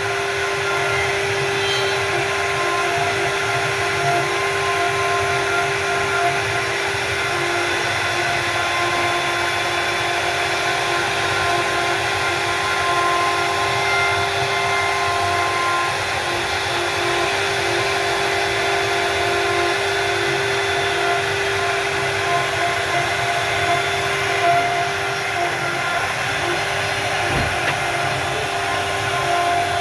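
CNC router machines running while carving wood: a loud, steady whine made of several constant tones over a continuous rushing hiss.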